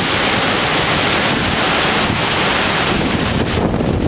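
Storm-force wind and driving rain rushing through trees, with heavy wind buffeting on the microphone, in a storm the witnesses take for a tornado. The high hiss dips briefly near the end.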